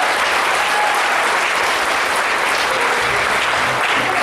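Audience applauding steadily, with music starting quietly beneath it near the end.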